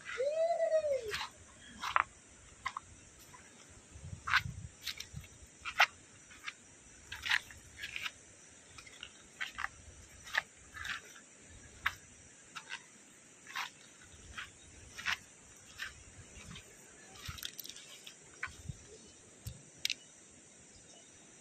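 Wild animal calls over a steady high insect drone: many short, sharp calls about once a second, with a lower arching call just after the start.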